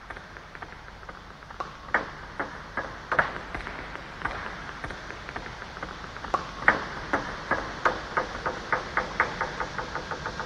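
Table tennis balls clicking off paddles and bouncing on the tables during backspin serve practice: scattered clicks at first, then a quicker, fairly even run of about three clicks a second from about six seconds in.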